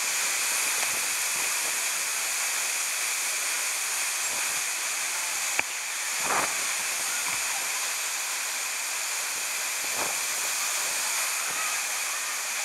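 Waterfall rushing close by, a steady hiss of falling water. A single sharp click comes about five and a half seconds in.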